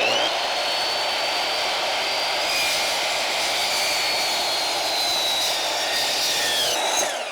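Ryobi 12-inch sliding compound miter saw running at full speed with a steady high motor whine while its blade cuts into a large tree log. About seven seconds in the whine drops and starts to fall away as the motor winds down.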